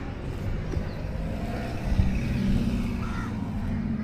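Street traffic: a motor vehicle going past, its engine hum swelling about two seconds in and then fading, over a steady low rumble.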